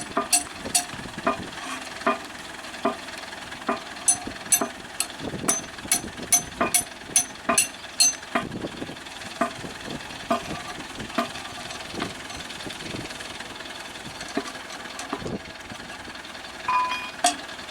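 Repeated sharp metallic clanks, about two a second, each ringing briefly, over a steady mechanical background noise. The clanks thin out through the middle and pick up again near the end.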